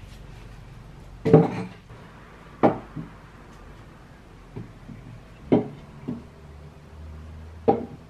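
Fake pumpkin decorations being set down and shifted on a wooden porch bench: four sharp knocks a second or more apart, with a few fainter taps between them.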